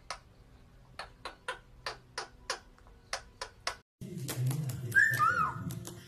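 A run of about ten sharp, irregularly spaced clicks, typical of a parrot clicking its beak or tongue, from a pair of white Indian ringneck parakeets. After a sudden cut about four seconds in, a louder stretch of room noise follows, with a short whistled chirp from a white-bellied caique.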